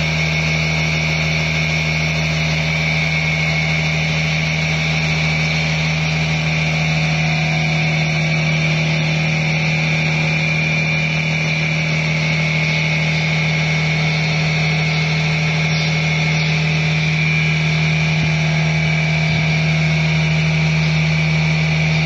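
Steady, unbroken machine drone: a low hum with a higher whine above it, running at one even level.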